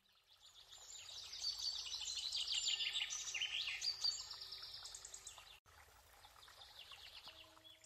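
Wild birds chirping: a dense, rapid run of short high calls that grows louder over the first two seconds, stops abruptly about five and a half seconds in, and then goes on more faintly.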